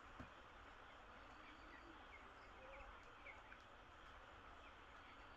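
Broiler chicks peeping faintly: short, scattered high peeps over a steady low hiss, with a single soft tap just after the start.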